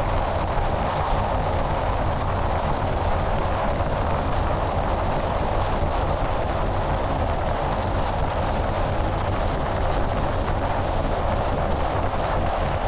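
Steady rush of wind buffeting the microphone of a camera mounted on a moving car's hood, with tyre and road noise underneath.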